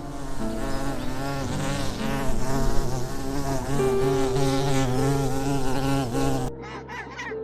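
A flying insect buzzing, its pitch wavering up and down, stopping abruptly near the end.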